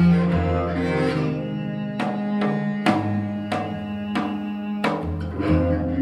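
Korean traditional chamber music: a dae-ajaeng's low bowed notes held and changing pitch every second or two, punctuated by sharp janggu drum strokes.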